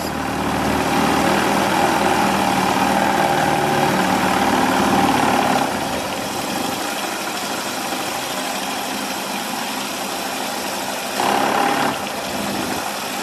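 Belt-driven 3D-printed Pelton turbine and generator running under water jets: a steady tone over a rushing noise. About six seconds in it drops quieter and the tone fades, then surges briefly near the end, as the drive belt loses tension and jumps, which the owner says makes the whole rig shake.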